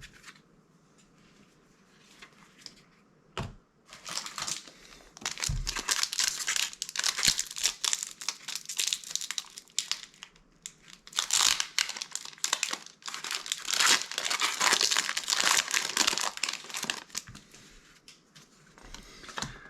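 Foil booster-pack wrapper crinkling as it is handled and opened, in two long spells of dense crackling, the first starting about four seconds in and the second a little after the middle, after a couple of soft knocks.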